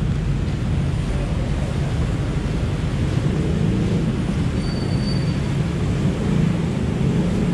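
Steady low engine rumble, typical of a docked ferry's diesel engines running while passengers board. A brief thin high tone sounds about five seconds in.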